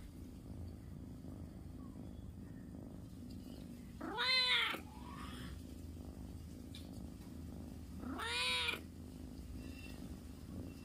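A cat meowing twice, about four seconds apart, each meow rising and then falling in pitch; the second is a little quieter.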